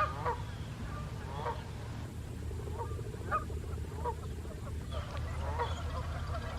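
Canada geese honking, a string of separate short calls coming every half second to two seconds, over a steady low rumble.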